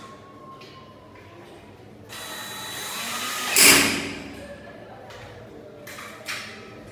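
Cordless drill running, driving a screw into the metal frame of a jalousie window. The whine builds from about two seconds in to its loudest just before the four-second mark, then dies away.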